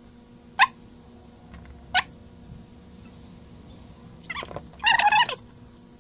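Two short, sharp chirps in the first two seconds, then a warbling burst of animal calls about four and a half seconds in, over a faint steady hum.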